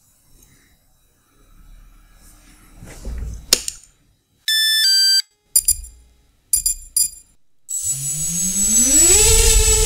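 Logo sound effects: a faint rising swell ending in a sharp snap, a quick run of electronic beeps and clicks, then a loud engine-like whine that rises in pitch over about a second and a half and holds.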